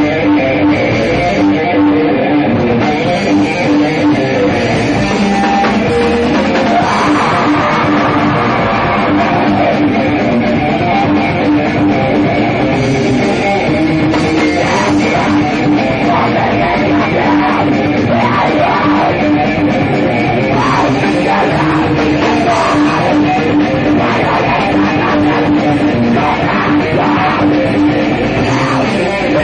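Heavy metal band playing live: distorted electric guitar, bass guitar and drum kit, loud and continuous.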